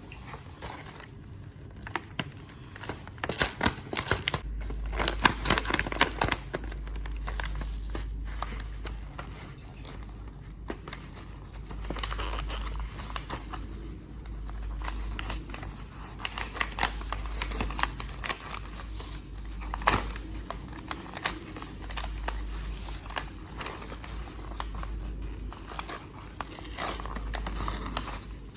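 Packaging crinkling and rustling as a sewing kit is handled and unpacked, with irregular small clicks and taps. A steady low hum sits underneath from about four seconds in.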